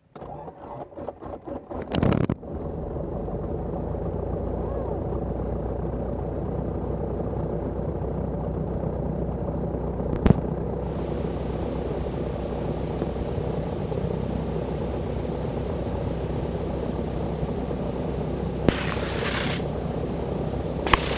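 Grumman AA5B Tiger's four-cylinder Lycoming O-360 engine being started: the starter cranks it in even pulses for about two seconds, it catches with a loud burst, then settles into a steady idle. About halfway through there is a sharp click, after which a faint hiss joins the engine sound.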